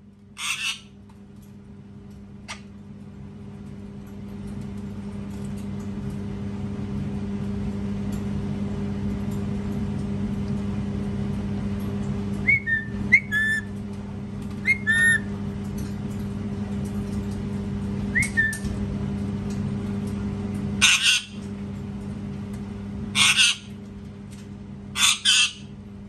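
Indian ringneck parakeet screeching in short, harsh bursts: once near the start, then three times near the end, with a few short whistled chirps in between. A steady low hum runs underneath.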